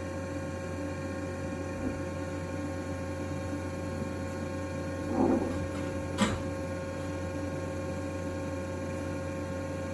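Steady electrical mains hum with a buzzy edge, with a short soft thud about five seconds in and a sharp click about a second later.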